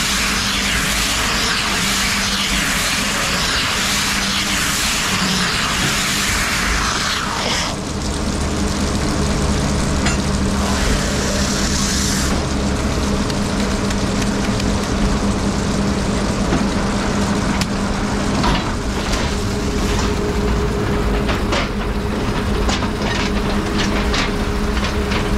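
Silage bale wrapping machine running: a steady mechanical drone with a constant low hum. A loud hiss drops away about seven seconds in, and a scatter of clicks and knocks comes in the last several seconds.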